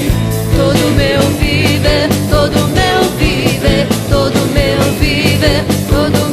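Gospel worship song played by a full band with a steady drum beat and bass under a wavering melody line.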